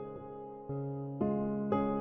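Background music: held chords, each struck anew about every half second and fading slowly between strikes.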